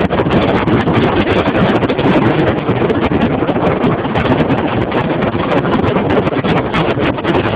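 Hurricane Sandy's storm wind buffeting the microphone: a loud, steady rush of wind noise.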